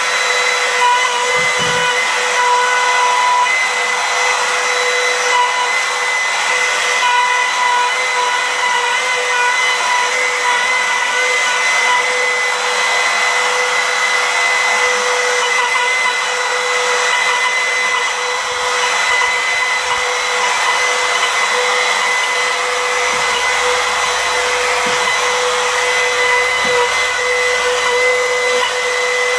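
Compact trim router running with a steady high-pitched whine, its bit cutting across a walnut slab as it is slid back and forth in a router sled to flatten it.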